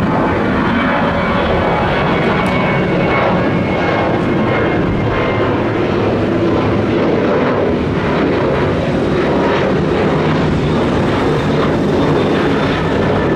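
Passenger aircraft engines running loud and steady as a plane takes off or lands close by, with a faint high whine over the rush of noise.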